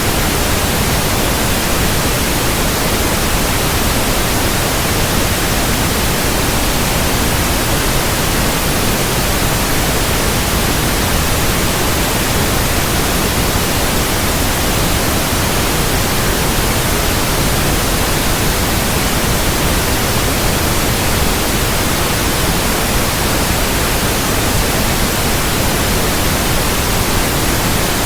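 Continuous white noise: a steady, even hiss across all pitches that does not change.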